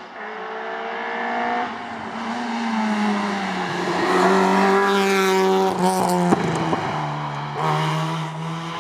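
Peugeot 206 rally car engine revving hard up through the gears as it climbs the stage towards and past the camera, with a gear change about a second and a half in. It grows loudest as the car passes, then briefly lifts off around six seconds in with a couple of sharp cracks before pulling on again.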